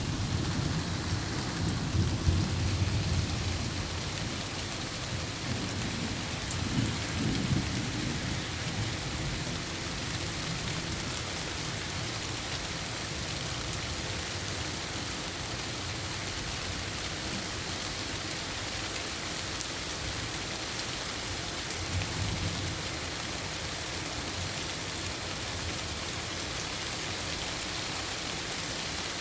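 Steady rain falling, an even hiss. Low rumbles rise under it a few times, twice in the first several seconds and once more about two-thirds of the way through.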